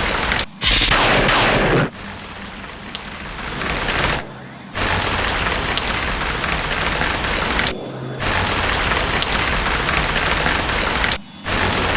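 Steady heavy rain with a sudden thunderclap about half a second in that fades downward over about a second. The sound drops out abruptly several times, where the recording has been spliced.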